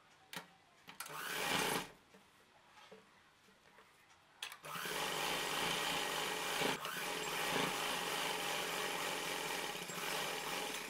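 Cloth rustling as the fabric is folded and placed under the needle. About four and a half seconds in, a domestic sewing machine starts abruptly and runs steadily for about six seconds, stitching a double-folded hem.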